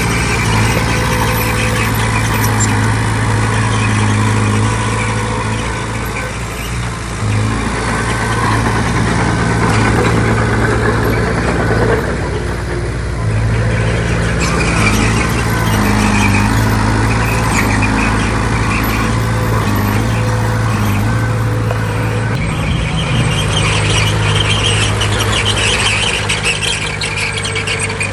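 Heavy diesel earthmoving machinery working steadily, its engine hum rising and falling slightly with load, with thin high-pitched squeaks over it.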